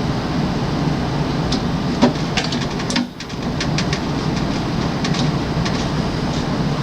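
Small clicks and taps of screws and a screwdriver as screws come out of a water cooler's cabinet panel, with one sharper knock about two seconds in. Under them runs a steady loud rumble and hiss with a low hum.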